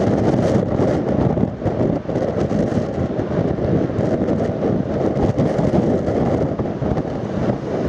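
Steady wind buffeting the microphone, mixed with the running of an approaching Comeng electric suburban train.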